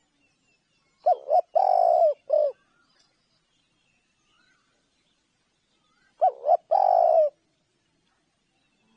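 Spotted dove cooing: two calls about five seconds apart, each two short coos running into a longer, drawn-out coo, the first ending with one more short coo.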